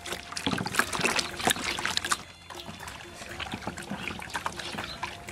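Wet squelching and sloshing of raw donkey intestines being rubbed and kneaded by hand in a plastic basin of water, in quick irregular squishes and splashes: the intestines are being scrubbed to work the slimy mucus off them.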